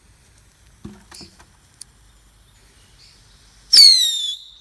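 A few faint knocks, then a whistling firework goes off: a short hiss followed by a loud, shrill whistle that falls slightly in pitch and holds.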